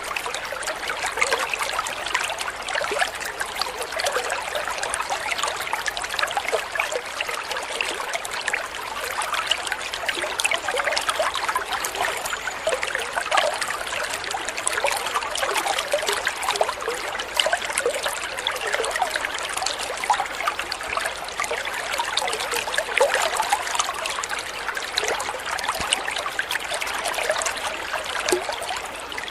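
Water of a small waterfall splashing and trickling steadily, full of fine spatters with little deep rumble.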